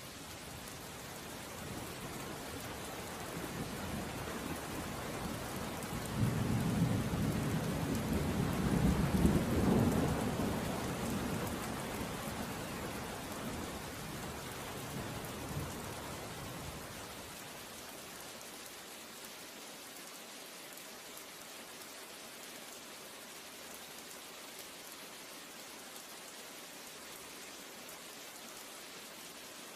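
Steady rain falling, with a long low rumble of thunder that builds a couple of seconds in, is loudest about a third of the way through, and dies away a little past the halfway mark.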